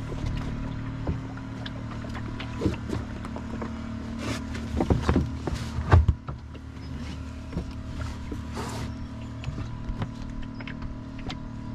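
Knocks and creaks of gear aboard a small wooden sailing dinghy over a steady low hum, with a cluster of louder knocks about four to six seconds in, the loudest near six seconds.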